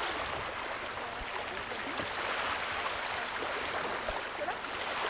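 Shallow lake water splashing and lapping around people wading and swimming, a steady even rush.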